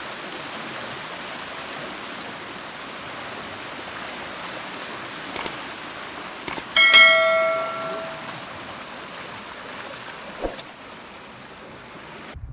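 Steady rush of water flowing past a concrete edge, with two clicks and then a ringing bell-like chime about seven seconds in, the sound effect of a subscribe-button overlay. A short knock comes near the end.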